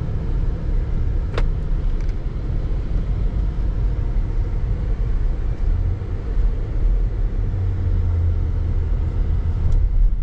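Steady low rumble of a car driving, heard from inside the cabin, with a single sharp click about a second and a half in.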